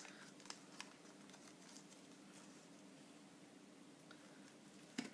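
Near silence: room tone with a faint steady low hum and a few faint clicks and taps from paper and ribbon being handled on a desk, the clearest one near the end.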